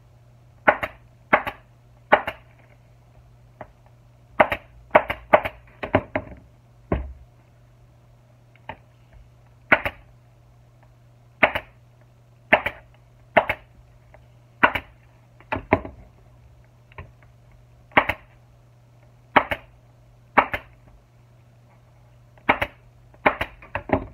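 Pneumatic staple gun firing staples one at a time through a motorcycle seat cover into the plastic seat pan: about two dozen sharp shots at irregular intervals, some in quick pairs. A low steady hum runs underneath.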